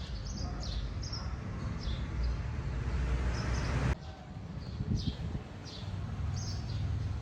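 Outdoor ambience: short high bird chirps repeating over a steady low rumble and rushing noise, which cuts off abruptly about four seconds in.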